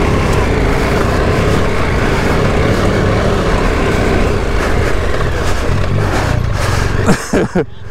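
KTM 1290 Super Adventure R's V-twin engine running steadily while riding, with wind rushing over the on-board microphone.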